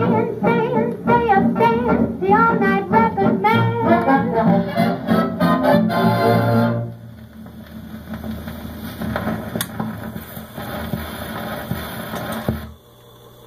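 A big-band record with brass playing through a Philco 41-610 radio-phonograph console. The music ends about seven seconds in, leaving a quieter hiss from the record, which cuts off near the end to a low steady hum.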